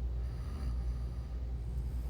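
A person snoring: a low, steady rumble.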